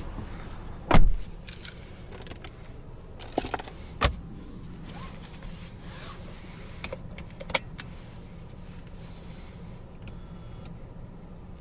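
Car door shutting with a heavy thump about a second in, followed by keys jangling and several sharp clicks of handling inside the car, over a low steady hum.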